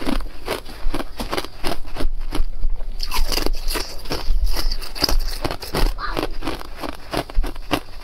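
Thin clear ice being chewed and crunched between the teeth close to the microphone: a rapid, irregular run of sharp crunches, several a second.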